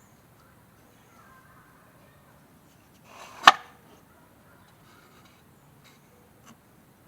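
One sharp knock of wood on wood about halfway through, with a couple of faint taps later.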